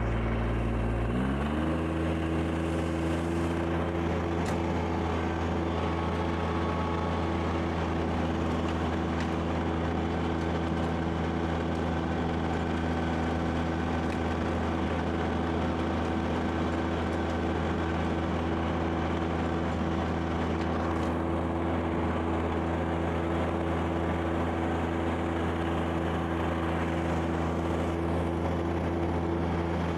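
Kubota BX2680's three-cylinder diesel engine revving up about a second in, then running steadily at high speed while driving a rear-mounted snow blower.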